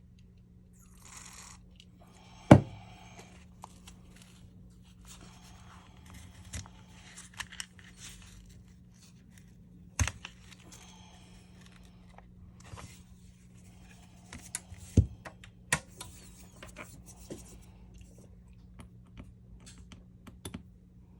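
Scraping, peeling and crinkling from hands working apart a Samsung A52 phone's screen assembly, with a few sharp clicks spread through, under a steady low hum.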